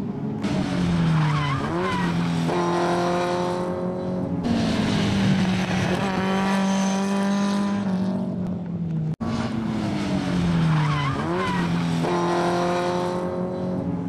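Racing car engines taking a corner on a circuit. Each engine note drops as the car slows and changes down, then climbs again in steps through the gears as it accelerates away. This happens twice, with a very short break in the sound about nine seconds in.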